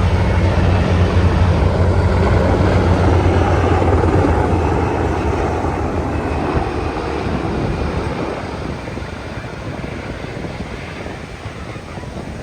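A low engine drone that fades away over the first several seconds, over a steady rushing noise.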